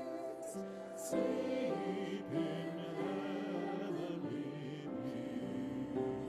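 A small group of voices singing a Christmas carol together in long held notes, with piano accompaniment.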